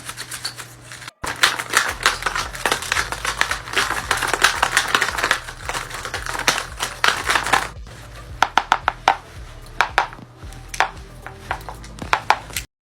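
Quick irregular clicks, taps and rustles of paper being handled and cut, over a steady low background tone. The sound drops out briefly about a second in and cuts off just before the end.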